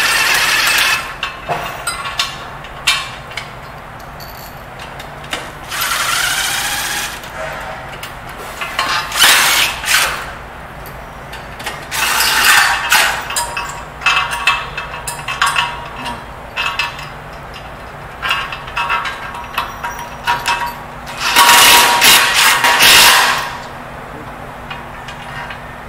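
Cordless drill-driver running in a series of short bursts as it drives the leg's bolts back in, the longest burst near the end, with clicks and clinks of metal parts between bursts.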